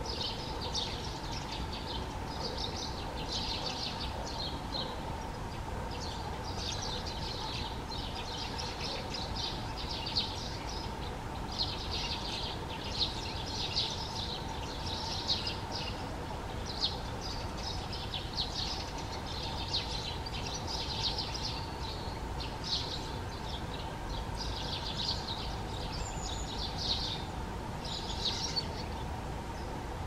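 Small songbirds singing in a near-continuous run of short, high-pitched chirping phrases over a faint steady hum. From about ten seconds in, a dozen or so short sharp taps stand out: a great spotted woodpecker pecking at the bark of a branch.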